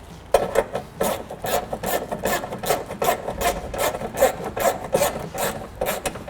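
Door trim panel screws being tightened with a hand tool: a run of short rasping strokes, about three or four a second.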